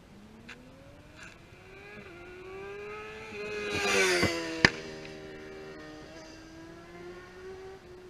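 Motorcycle engine passing close by: its note climbs as it accelerates in, is loudest about halfway through, then fades away. There is one sharp click just after the loudest point.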